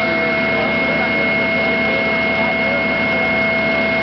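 An engine running steadily at idle, an even drone carrying two constant whining tones.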